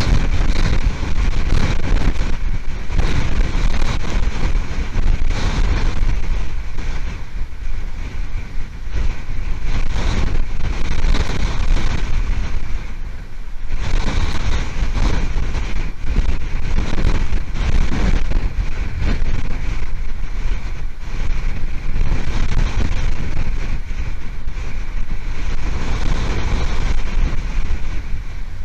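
Strong gusting wind buffeting an outdoor nest-cam microphone, loud and unbroken, with a deep low rumble that swells and eases gust by gust. The wind is likely from Hurricane Milton's arrival.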